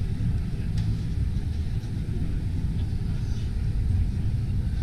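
Steady low rumble of a large exhibition hall's background noise, with faint distant crowd chatter.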